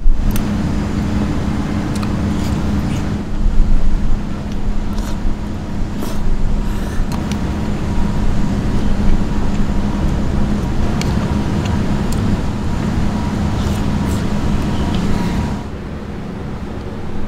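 Steady low hum of urban traffic noise, with scattered sharp clinks of metal utensils against an aluminium pot and bowl. The hum drops away near the end.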